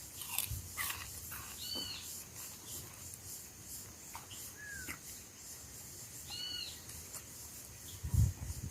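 Birds calling: a short arched two-part call repeated twice, a few seconds apart, and a lower falling call between them, over a steady high insect hiss. A few low thumps come near the end.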